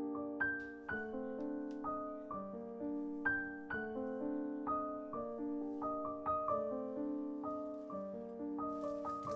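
Gentle background piano music, single notes and chords struck about twice a second.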